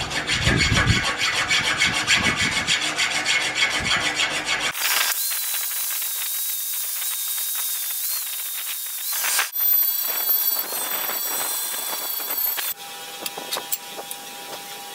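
Steel file rasping in repeated strokes across the cut end of a piece of railroad track rail. After a cut comes a steadier hissing scrape with a thin high whine, and near the end the sound drops to a quieter, steady background.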